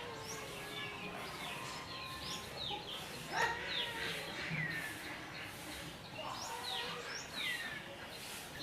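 Small birds chirping: many short, high calls, often falling in pitch, overlapping throughout, with one louder call about three and a half seconds in.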